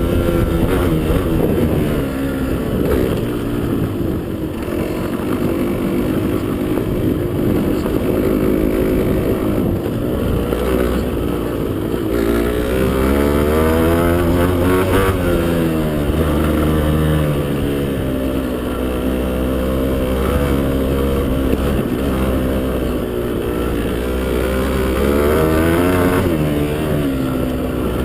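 Motocross bike engine running hard, its pitch repeatedly rising and falling as the throttle is opened and closed.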